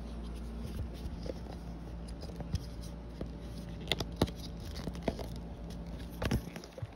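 A phone being handled and fitted into a phone stand: rubbing and knocking on its microphone, with a few sharp clicks about four seconds in and again near the end, over a low steady hum.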